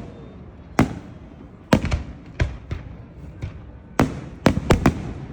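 Fireworks exploding: a run of sharp bangs over a low rumble, with a quick cluster of four bangs about four seconds in.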